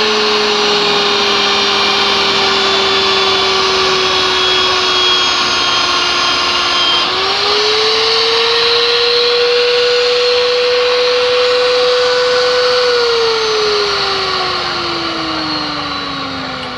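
Electric pipe-threading machine running with a steady motor whine while cutting threads on steel pipe. About thirteen seconds in, the whine falls steadily in pitch and fades as the machine winds down.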